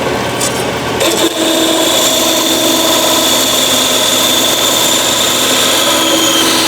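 Bandsaw cutting through a piece of metal stock. A steady high whine sets in about a second in, holds, and drops slightly in pitch near the end.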